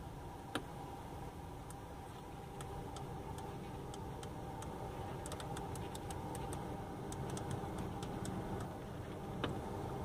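Rotary temperature knob on an Opel Vectra's climate control panel clicking through its detents as it is turned, in runs of light ticks that come thickest in the second half, with a sharper click near the start and another near the end. A steady hum lies underneath.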